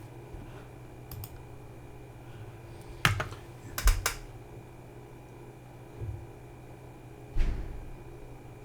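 A handful of separate clicks and taps at a computer, irregularly spaced, with a cluster of sharper clicks a little before the middle and a duller thump near the end, over a steady low hum.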